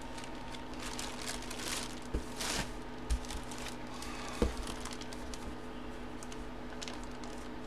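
Hands handling a clear plastic card sleeve, with soft crinkling and rustling. A few light knocks come as the cards are set down on a cardboard box.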